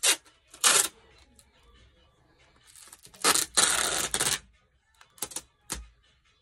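Packing tape being pulled off its roll onto a cardboard box: two short rips in the first second, then one long pull lasting about a second. A couple of sharp clicks or knocks follow near the end.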